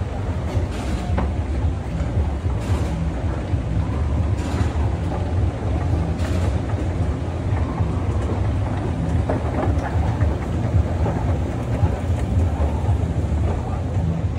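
Escalator running: a steady low mechanical rumble with a faint regular rattle from the moving steps, and a few light clicks in the first half.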